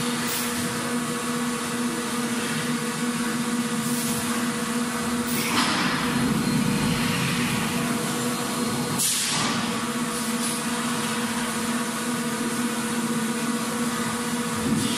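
Fish-processing factory machinery running with a steady hum under constant noise. Two brief hissing rushes come about five and a half and nine seconds in.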